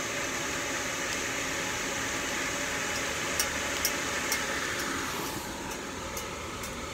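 Steady rushing of the fan that blows air through a geothermal greenhouse heating-and-cooling system, pushing ground-cooled air out of the exhaust. It drops a little in level about five and a half seconds in.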